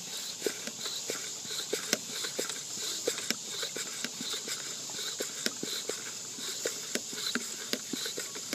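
Hand pump on a portable pump-up sink's water container being worked to build pressure, with irregular plastic clicks and knocks from the strokes. Insects chirp steadily in the background.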